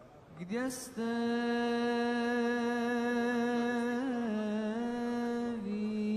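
A single voice chanting long, held notes, sliding up into the first note and then stepping down in pitch twice, with a brief ornament about four seconds in. This is religious chant typical of a Muslim commemoration. A short hiss comes just before the voice starts.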